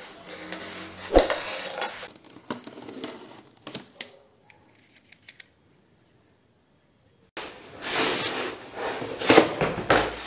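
Utility knife slicing through the packing tape of a cardboard parcel, scraping with a sharp click, then a few faint clicks. After a few seconds of dead silence, loud crinkling and rustling of the parcel's wrapping being handled and torn open.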